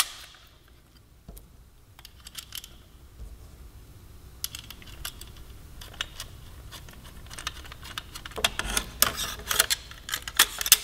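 Small steel bolts, washers and locking nuts clicking and clinking as they are handled and fitted onto a metal bracket by hand. Scattered light clicks that come thicker about halfway through and again near the end.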